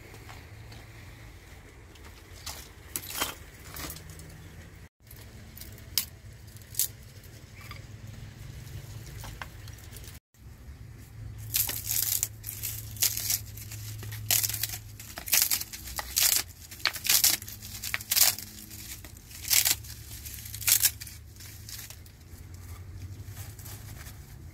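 Dry twigs and brushwood crackling and snapping as they are handled and laid as kindling in a brick firebox, with a dense run of sharp snaps over the second half.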